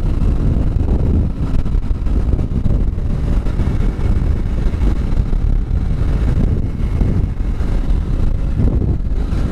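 Kawasaki Ninja motorcycle cruising at steady speed: engine running under the steady rush of wind over the helmet-mounted microphone.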